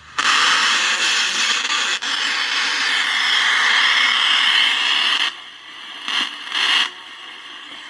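Loud static hiss from the loudspeaker of a 1948 Pilot TV-37 television. It cuts off about five seconds in, then comes back in two short bursts.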